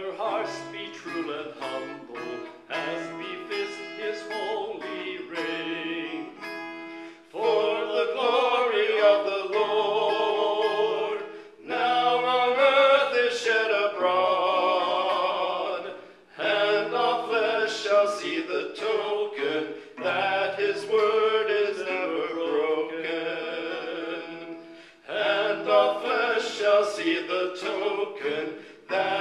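Acoustic guitar fingerpicked alone for about seven seconds, then a voice comes in singing long, wavering phrases over the guitar, with short breaks between the lines.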